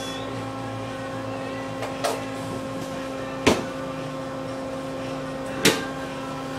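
Steady machine hum of sandwich-shop counter equipment, broken by three sharp knocks: a light one about two seconds in, and louder ones about halfway through and near the end.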